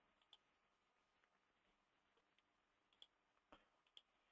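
Near silence with four faint clicks: one just after the start and three close together near the end.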